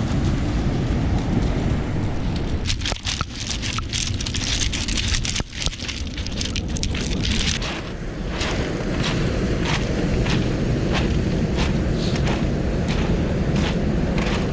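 Wind buffeting the microphone in a steady low rumble, with footsteps crunching on a stone beach. Around the middle the crunches come thick and uneven, then settle into an even walking rhythm of about one and a half steps a second.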